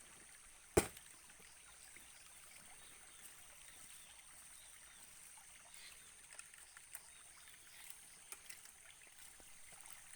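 Faint sound of water with a steady high-pitched hiss, and a single sharp knock about a second in.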